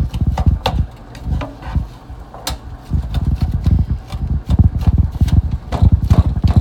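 Black plastic slotted spatula stirring and chopping browning meat in a skillet: an uneven run of clacks, scrapes and dull knocks against the pan, easing off briefly about a second in before picking up again.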